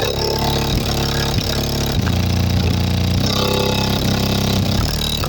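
Bass-heavy music played loud through a car's stock audio system with a JBL subwoofer, deep bass notes changing every half second or so.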